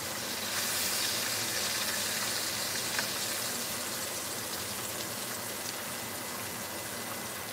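Thick pork chops shallow-frying in a skillet of hot grease: a steady sizzle, a little louder over the first few seconds, with one light click about three seconds in.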